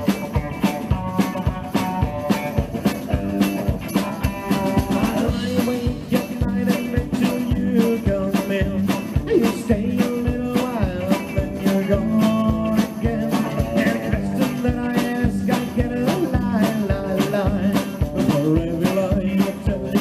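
Rockabilly band playing live, with electric guitars, upright bass and drums keeping a steady driving beat, in a passage without words.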